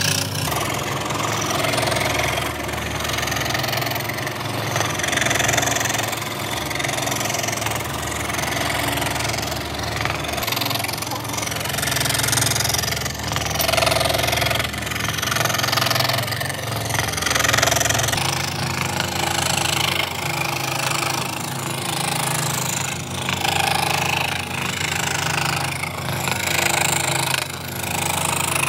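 Electric power tool motor running steadily while working wood, a low hum under a noisy, uneven cutting sound that swells and fades.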